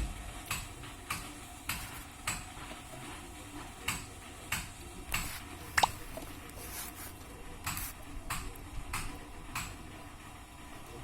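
Repeated light metallic clicks and knocks, roughly two a second, with one louder ringing metallic ping about six seconds in.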